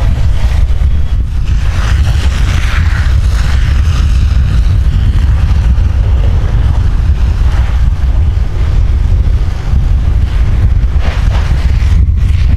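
Wind buffeting the microphone outdoors: a loud, steady low rumble.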